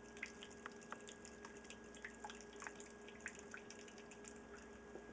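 Wort trickling slowly from a cooler mash tun's brass spigot into a plastic pitcher: faint, irregular drips and small plinks, several a second, over a steady low hum. These are the first runnings of a vorlauf, drained real slow so the grain bed doesn't clog.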